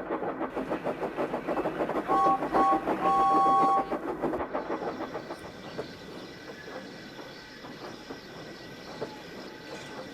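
Steam locomotive running with rapid, even beats, sounding a two-note whistle about two seconds in, a short toot then a longer blast. After that the train runs on more quietly.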